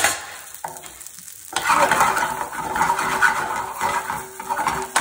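Purple sprouting broccoli sizzling in a hot frying pan, seasoned with salt, chili and mango powder, as a metal spoon stirs and scrapes it about. There is a short knock at the start, and the busy stirring and scraping begins about a second and a half in.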